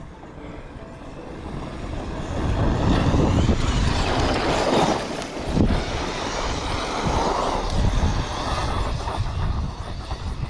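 Electric RC truck driving hard over loose dirt, its motor and tyres getting louder from about two seconds in. A sharp knock sounds about five and a half seconds in.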